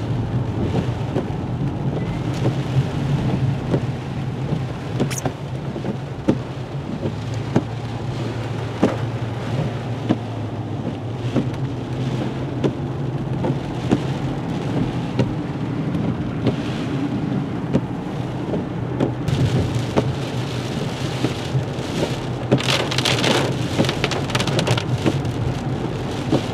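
Rain hitting a moving car, with many single drops ticking over a steady low drone of engine and tyres; the rain thickens for a couple of seconds near the end.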